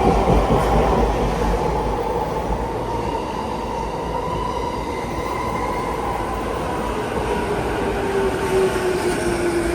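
A train running, loud and steady, with whining tones over the rumble; one tone slides lower near the end.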